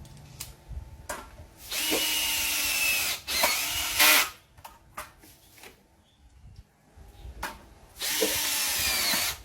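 Dewalt 26V cordless hammer drill driving screws: its motor whines in runs of about a second and a half, falling slightly in pitch as each screw bites, and ends each run in a short, louder burst as the screw is driven home. This happens twice, and a third screw starts near the end.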